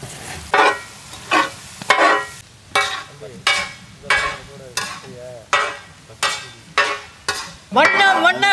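A long wooden spatula scraping and tossing vegetables on a large shallow iron pan, a sharp scrape about every three quarters of a second over a faint sizzle of stir-frying. A voice starts near the end.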